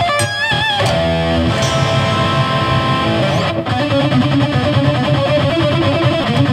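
Electric guitar playing a neoclassical metal lead: wavering high notes at first, a note held and ringing for about two seconds, then a fast run of notes.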